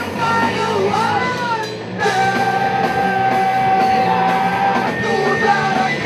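A punk rock band playing live, with electric guitar and a sung vocal over the full band. The singer holds one long note from about two seconds in until about five seconds in.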